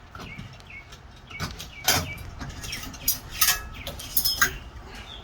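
A series of sharp clicks and knocks as fan-mounting hardware is handled, with birds chirping in the background.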